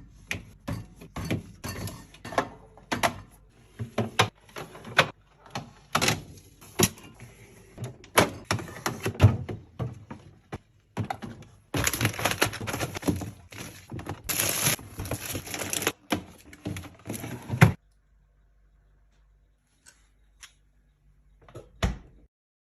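Clicks, knocks and clatter of food packages and plastic containers being handled and set down while groceries are put away, with a few seconds of denser noise about halfway. It goes quiet about five seconds before the end.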